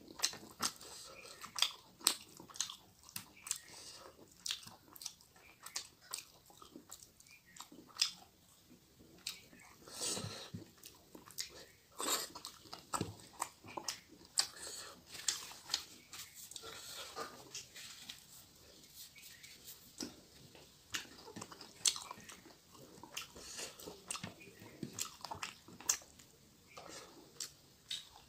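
Close-miked chewing and lip-smacking of a mouthful of fish curry and rice, many short wet clicks at an uneven pace.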